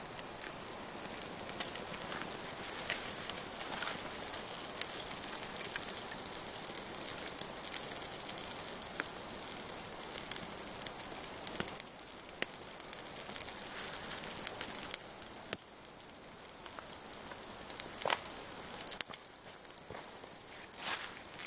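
Birch bark and a bundle of thin dry twig kindling burning, crackling with frequent small irregular pops over a steady hiss.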